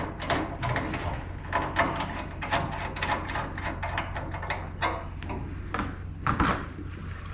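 Irregular rubbing and scraping of heavy insulated copper wire being handled and slid through a service-entrance pipe, over a steady low hum.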